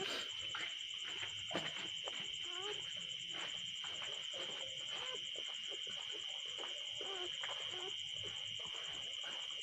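Night insects, crickets by their sound, trilling steadily in a continuous high-pitched chorus. A few faint short squeaks sound underneath.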